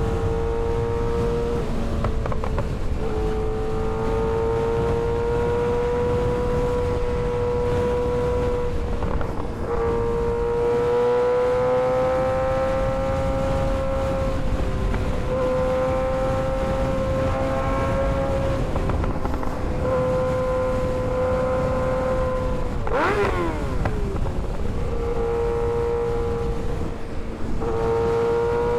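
Kawasaki ZX-6R 636 inline-four engine running at high, fairly steady revs under way, its pitch creeping up and down with a few short breaks, and a quick drop and rise in revs about 23 seconds in. A steady rush of wind noise runs underneath.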